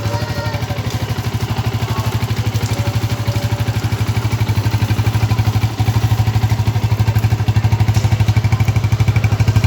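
Yamaha Vixion's 150 cc single-cylinder four-stroke engine idling with an even, steady pulse, a little louder from about six seconds in. The engine is all-original and, by the seller's word, in top condition.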